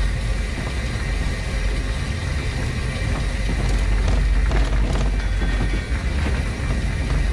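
1915 Orenstein & Koppel steam locomotive running along the track: a steady heavy rumble of the running gear, with a short cluster of clicks and knocks around four to five seconds in.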